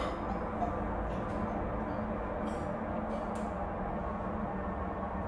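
A steady low rumbling drone with a few faint soft clicks around the middle.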